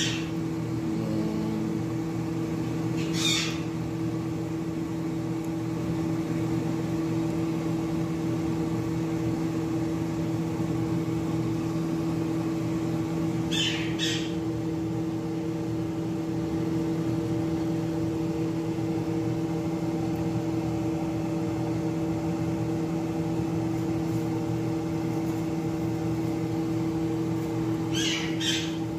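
Steady machine hum with several held tones. A few brief light taps come through about three seconds in, twice around the middle, and twice near the end.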